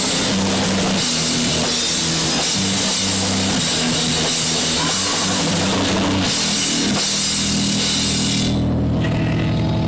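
Punk rock band playing loud, with drum kit, crashing cymbals and distorted guitar. About eight and a half seconds in, the drums and cymbals stop and low held notes ring on as the song ends.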